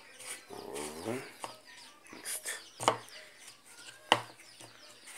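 A hand squishing and mixing a wet flour, egg and crushed eggshell mixture in a plastic bowl, with a few sharp clicks and knocks, the loudest about three and four seconds in. A short voice-like call sounds about a second in.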